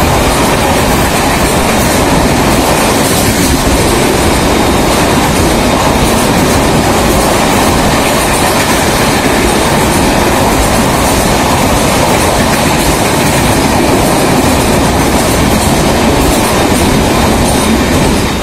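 Long-distance passenger train with red coaches, hauled by an electric locomotive, running through the station past the platform: a loud steady rumble of wheels on the rails that starts to fall away at the very end as the last coach clears.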